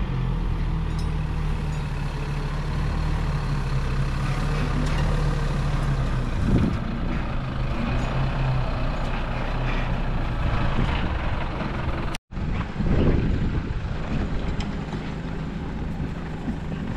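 Isuzu four-wheel-drive truck's engine running steadily as the truck drives off-road over rough ground. The sound drops out for an instant about twelve seconds in, then vehicle running noise picks up again.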